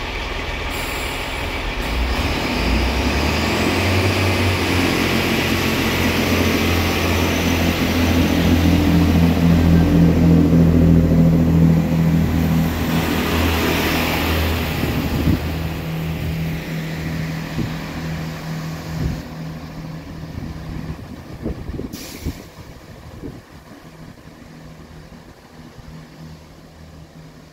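GWR Class 165 diesel multiple unit pulling away from the station, its underfloor diesel engines running under power. The engine sound builds for about ten seconds, then fades as the train draws off into the distance.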